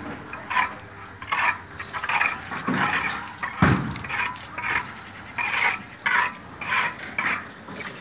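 Sectional garage door moving in its tracks, with a run of short scraping, rubbing sounds about two a second and two low thumps near the middle.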